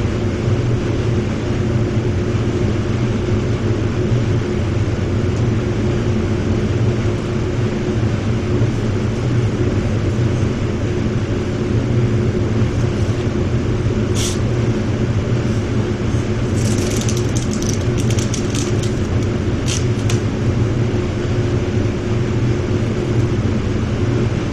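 Steady drone of a paint spray booth's ventilation fans. Midway through, masking tape is pulled off the roll in a few short rasping bursts.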